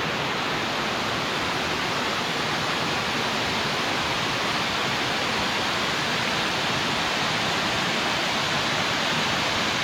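The sixth tier of Erawan Falls pouring and trickling down over the rocks: a steady, even rush of falling water.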